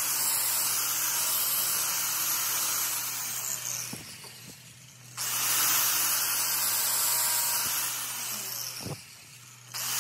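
Angle grinder's abrasive disc grinding steadily on the rebuilt teeth of a differential pinion gear. The grinding drops off twice, about four and nine seconds in, as the disc comes off the metal for a moment while the motor keeps running.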